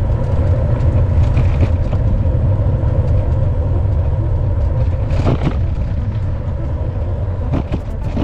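Steady low rumble of riding an e-bike, wind and rolling noise on the bike camera, with a faint steady hum and a couple of short knocks about five and seven and a half seconds in.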